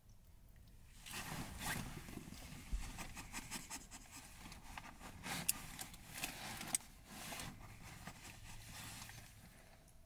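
Someone eating noodles: scattered scrapes and clicks of a plastic fork in a collapsible bowl, with chewing.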